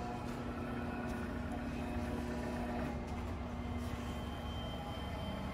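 Profax WP-1000 welding positioner's electric rotation drive motor and gearbox running, turning the table steadily: an even mechanical hum with a few steady held tones.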